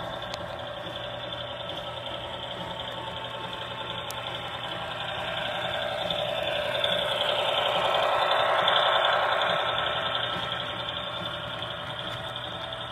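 HO scale model train running along the track, its motor and wheels making a steady mechanical hum that grows louder as it passes close, loudest about eight seconds in, then fades.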